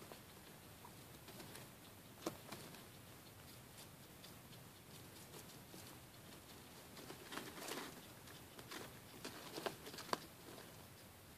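Guinea pigs shuffling on hay inside a paper bag: faint rustling and crinkling with scattered small clicks, busiest from about seven to ten seconds in.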